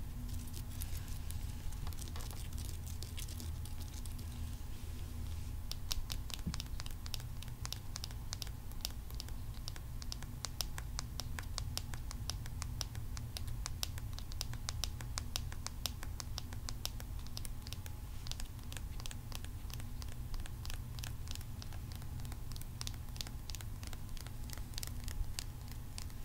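Long fingernails tapping and scratching on a dragon figurine. The clicks are sparse at first, then come in quick runs from about six seconds in, over a steady low hum from the phone recording.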